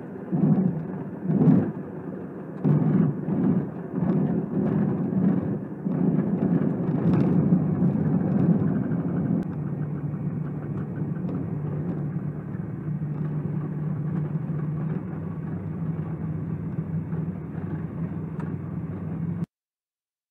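Light aircraft's propeller engine and airframe heard from inside the cockpit during a rough landing on a grass strip: a run of heavy thuds and bumps for the first several seconds, then a steady engine hum as the plane rolls on. The sound cuts off suddenly near the end.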